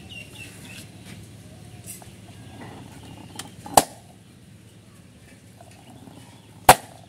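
Homemade confetti popper, a paper towel tube with a balloon stretched over its end, fired by pulling back and releasing the balloon: a sharp pop a little under four seconds in, and a second, louder pop about three seconds later. Faint rustling of the confetti and tube comes before the first pop.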